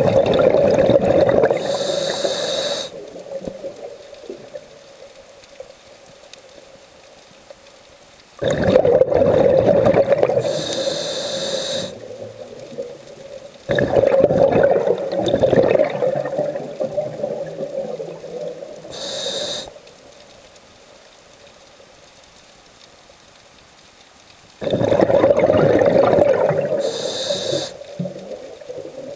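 Scuba diver breathing through a regulator underwater, heard four times: each breath is a few seconds of rumbling exhaled bubbles followed by a short hiss of the regulator on the inhale, with quieter pauses between breaths.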